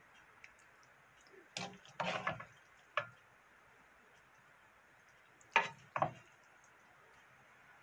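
Wooden spatula knocking and scraping against a wok and a ceramic plate while saucy stir-fried octopus is served out: a few short knocks, with a pair close together about two-thirds of the way through.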